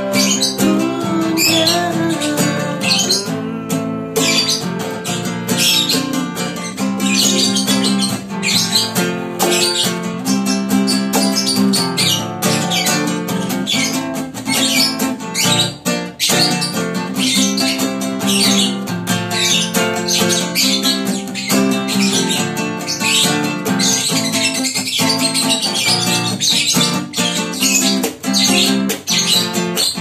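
Acoustic guitar strumming chords while a lovebird squawks along in many quick, high chirps.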